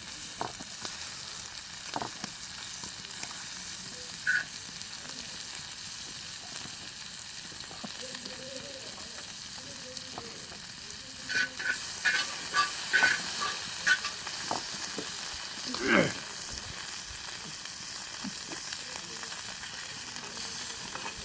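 Pork offal sizzling steadily on a cast-iron pot lid over a wood fire. A run of sharp clicks and taps comes about halfway through, and another short clack a few seconds later.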